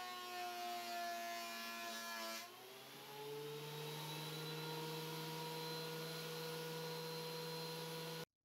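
Ridgid benchtop thickness planer running. The motor's whine sags in pitch while a board is being cut, then rises back to a steady free-running pitch once the pass ends about two and a half seconds in. It stops abruptly near the end.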